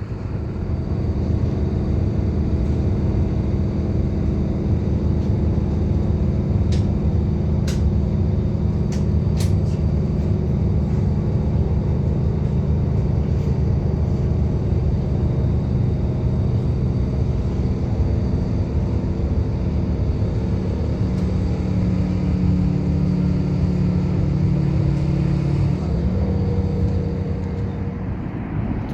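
Large diesel engine of a railway locomotive running steadily, with a deep, even hum that shifts in pitch about 26 seconds in. A few short sharp clicks sound around 7 to 10 seconds in.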